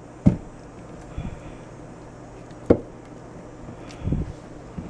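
Raw bone-in lamb shanks being set down in a glass baking dish: a few dull knocks and thuds of meat and bone against glass, the sharpest a little past halfway and a duller, deeper one near the end.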